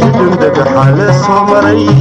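Somali song playing: a wavering melody over held bass notes.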